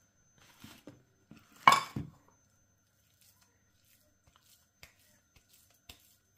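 Kitchen dishes and utensils knocking and clinking: a few light knocks, then one louder clatter with a short ring about a second and a half in, followed by scattered faint ticks.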